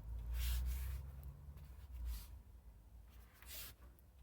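Soft rubbing and swishing of hands handling an inflated bicycle inner tube, in a few brief strokes, with a low rumble in the first couple of seconds.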